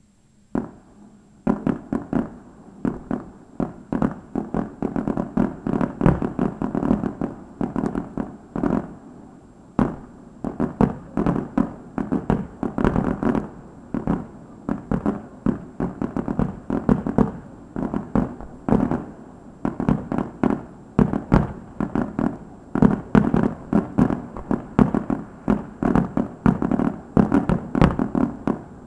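Aerial fireworks display: shells bursting in a rapid, continuous barrage of bangs, several a second, starting about a second in after a single early bang.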